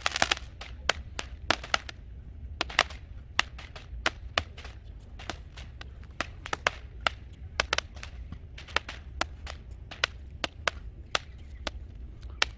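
Small fireworks going off: a long irregular run of sharp cracks and pops, several a second.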